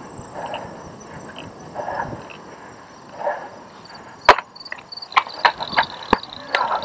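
Cyclocross bike jolting over bumpy grass: a single sharp knock a little past halfway, then a quick run of clacks and rattles.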